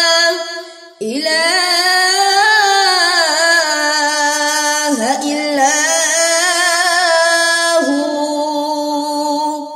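A boy's voice reciting the Quran in melodic tilawat style, drawing out long ornamented notes. A phrase trails off just after the start; after a short breath a new long phrase begins about a second in, bending up and down in pitch, and fades near the end.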